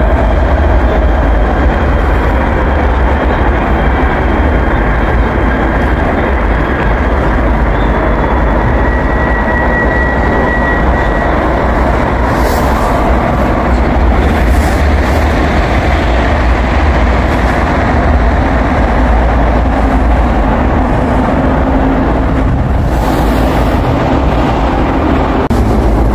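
Busan Metro Line 2 subway train running, a steady rumble of wheels on the rails. A faint high whine comes briefly about ten seconds in, and short hisses come a few times later on.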